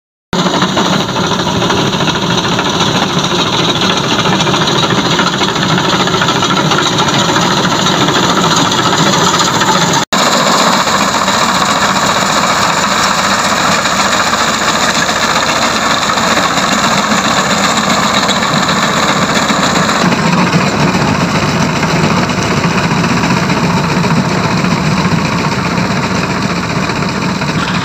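Tractor engine running steadily under load as its front-mounted reaper cuts standing wheat. The sound drops out for an instant about ten seconds in and changes character about twenty seconds in.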